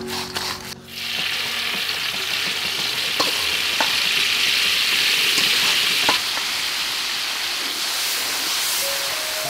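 Crickets with kaffir lime and pandan leaves deep-frying in hot oil in a steel wok: a steady sizzle starts about a second in and eases slightly after about six seconds, with a few light clicks.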